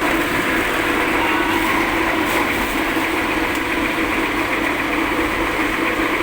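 Soybean husk-separating machine with two stainless-steel rollers running steadily: a constant, even machine noise.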